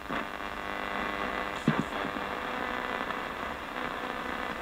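Portable radio used as a ghost box, scanning through frequencies: a steady hiss of static over a low hum, with a couple of brief blips as it passes stations, one near the start and one about a second and a half in.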